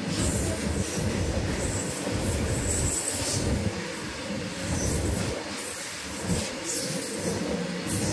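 Freight train of covered goods wagons rolling past close by: a heavy, steady rumble and clatter of steel wheels on rail, with short high-pitched wheel squeals now and then.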